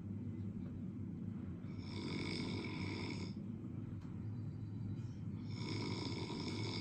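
Snoring: slow, regular breaths about every four seconds, each with a high whistling tone, over a steady low hum. Two breaths fall in this stretch, one about two seconds in and one near the end.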